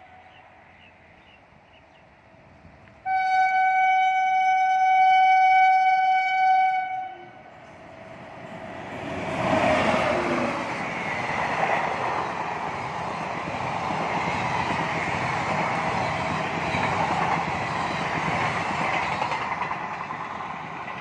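Indian Railways WAP-7 electric locomotive sounding its horn in one blast of about four seconds. A few seconds later the locomotive and its coaches rush past, with a steady rumble and clatter of wheels on rail that eases near the end.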